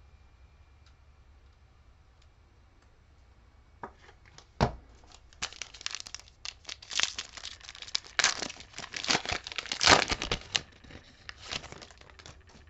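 Foil wrapper of a 2020-21 Mosaic UEFA Euro trading-card pack being torn open and crinkled by hand. A sharp tear comes about four and a half seconds in, then rapid crackling that dies away shortly before the end.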